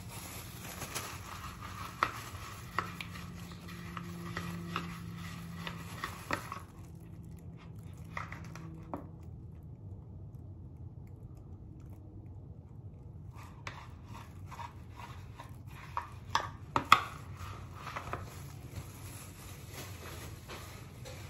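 A utensil tapping and scraping against a plastic mixing bowl as a bleaching mixture is stirred, in irregular clicks, with a quieter pause in the middle and a few sharper knocks later on.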